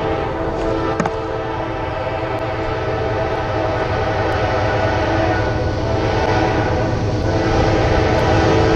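Air horn of an approaching Norfolk Southern GE C40-9 diesel freight locomotive, sounding a steady multi-note chord over the low rumble of the train. It grows gradually louder as the train nears.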